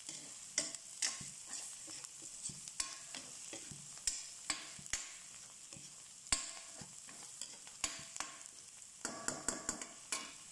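Chopped garlic and onion sizzling in a stainless steel wok, with a metal spatula scraping and clinking against the pan in irregular strokes, coming thicker near the end.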